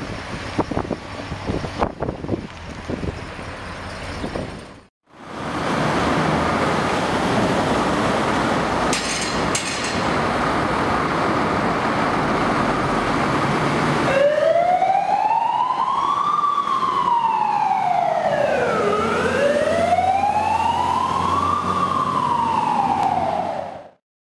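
Fire trucks driving off, their engines and road noise running. From about fourteen seconds a fire engine's wailing siren rises and falls slowly twice, then fades out near the end.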